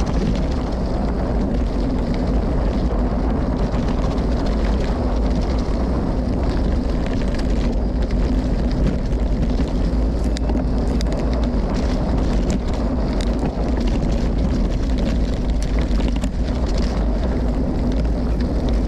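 Wind buffeting the microphone as a gravel bike rides down a dirt trail, with scattered rattles and knocks from the bike over rough ground.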